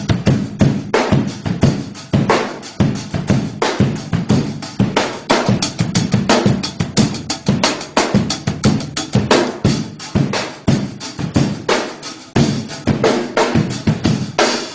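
Drum kit played in a fast, busy pattern of kick drum, snare and rimshot hits, stopping abruptly at the end.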